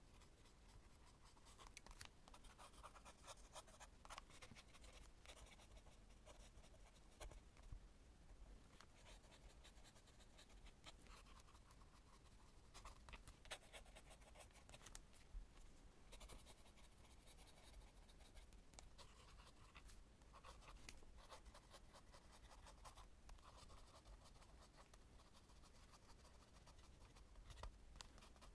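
Faint scratching of a Lamy fountain pen nib on journal paper as cursive words are written: irregular runs of quick strokes with brief pauses between them.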